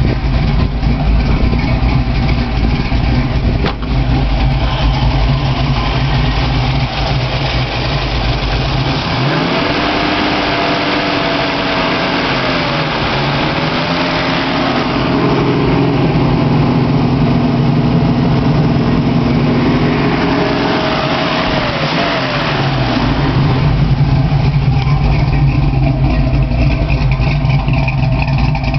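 Ford small-block V8 crate engine in a 1966 Mustang, exhausting through Flowmaster mufflers, idling. About nine seconds in it is revved up by hand at the carburetor's throttle and held at raised speed, with a brief dip, for about twelve seconds, then drops back to idle.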